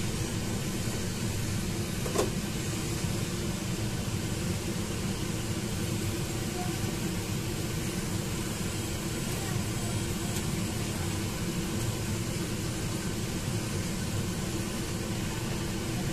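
Water at a rolling boil in a stainless steel pot on a gas burner: steady bubbling over the hiss of the flame, with a single short click about two seconds in.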